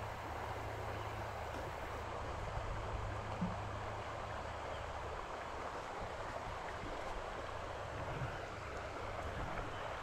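Steady rush of river water flowing past the bank.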